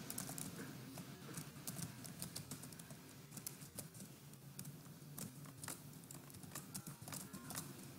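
Faint typing on a computer keyboard: light, irregular key clicks.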